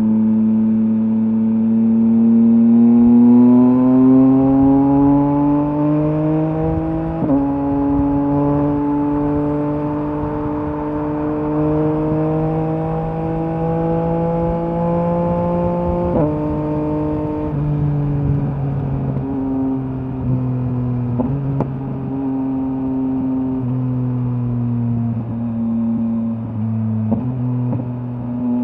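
2023 Yamaha MT-09's 890 cc three-cylinder engine through a LeoVince LV Race exhaust, pulling hard under acceleration with rising revs. The pitch drops suddenly at two upshifts, about 7 seconds in and again about 16 seconds in. After that the revs ease off and settle as the bike cruises.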